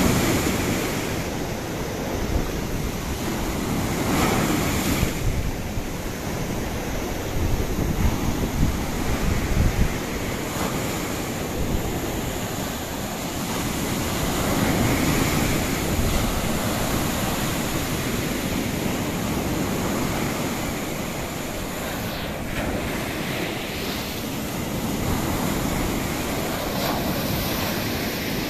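High storm surf breaking on a sandy shore, waves crashing and washing up the beach in repeated surges that swell and ebb every few seconds. Wind buffets the microphone.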